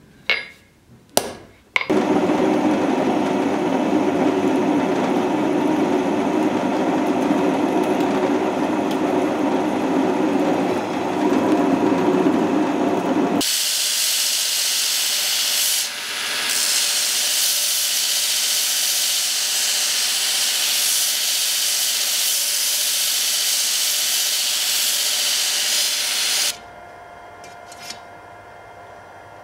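Two sharp metal taps, then a power tool running steadily for about eleven seconds. It cuts abruptly to a belt grinder grinding steel, a loud hissing rasp that stops suddenly near the end.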